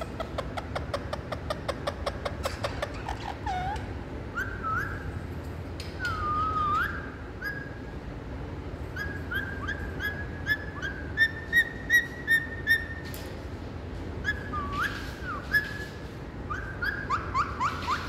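Caged Indian ringneck parakeet making soft whistles and chirps: a quick run of clicks at the start, short whistled notes that bend up and down, a few louder sharp chirps in the middle, and a fast run of repeated notes near the end.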